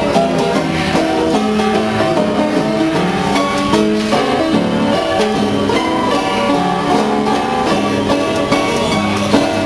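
Seeburg coin-operated piano playing from a perforated paper music roll, giving a continuous run of short piano notes. The instrument is in very poor condition, by the uploader's account.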